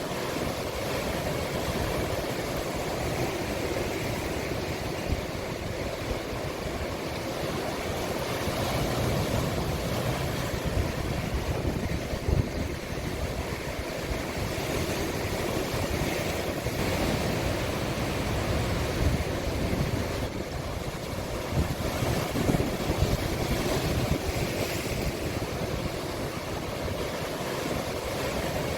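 Sea waves breaking and washing continuously on a shore, a steady low rumble of surf with occasional louder surges. Wind buffets the microphone at times.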